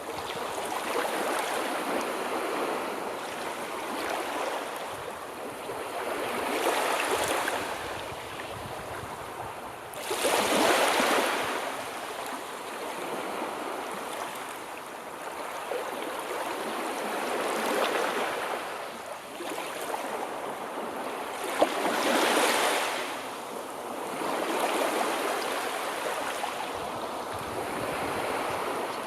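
Sea waves washing in one after another, each a swell of rushing water noise that rises and fades over a few seconds, two of them breaking more sharply and loudly.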